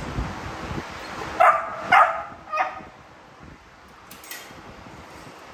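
American bully dog barking three times in quick succession, about half a second apart, the first two barks the loudest.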